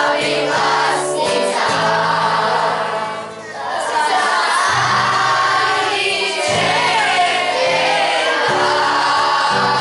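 A large group of children singing together as a choir, over instrumental accompaniment with steady held bass notes.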